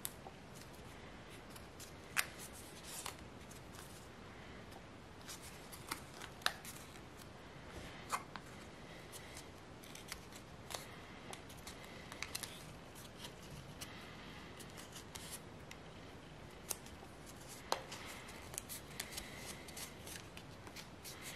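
Sheet of white origami paper crinkling and crackling in the hands as a paper crane is folded and shaped, with scattered sharp crackles, the loudest about two seconds in and again near the end.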